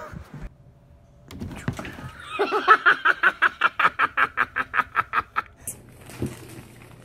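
A person laughing hard in a quick, even run of short 'ha' bursts, about five a second, for around three seconds in the middle.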